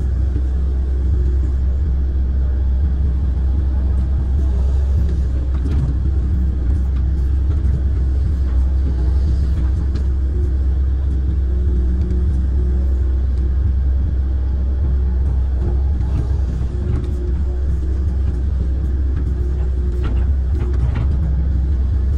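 Kobelco amphibious excavator's diesel engine running steadily under work, heard from the operator's cab as a loud, even low rumble, with a fainter higher hum that comes and goes.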